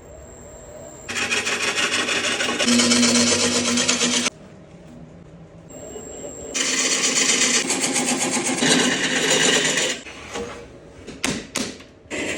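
A power tool working spalted red oak in two bursts of about three seconds each: a loud, noisy cutting sound over a steady motor tone, followed by a few sharp knocks near the end.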